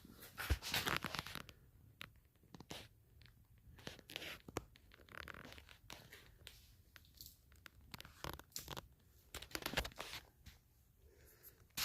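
Scattered faint crunching and rustling, with short clicks and knocks at irregular intervals; the louder ones come about a second in and again around eight to ten seconds.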